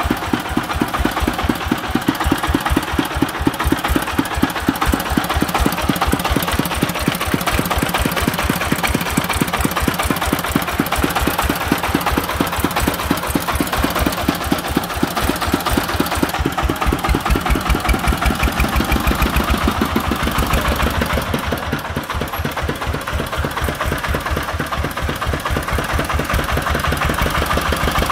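Single-cylinder diesel engine of a công nông farm truck running with a fast, even thudding beat; about two-thirds of the way through the beat shifts and the level dips slightly.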